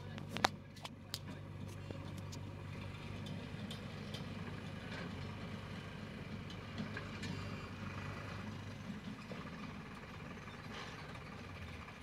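JCB backhoe loader's diesel engine running at a steady speed as the backhoe arm works, with a few sharp knocks about half a second in.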